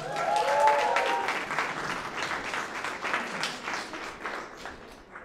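Audience applause: many people clapping, starting suddenly and tailing off near the end. A voice briefly calls out in the first second.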